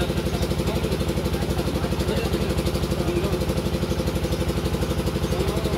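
A small engine idling steadily with a fast, even pulse.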